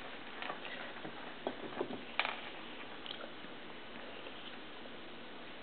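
Faint room tone with a few soft ticks and taps, the loudest about two seconds in, as a baby picks puff snacks off a plastic high-chair tray and chews them.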